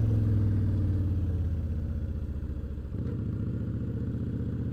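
Motorcycle engine running at road speed with a steady low pulsing note, easing off a little partway through and then holding steady.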